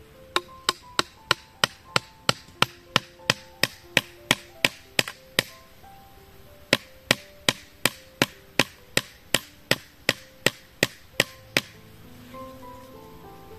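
Machete blade striking bamboo in quick, even blows, about three a second, in two runs of some fifteen strikes each with a pause of about a second between them.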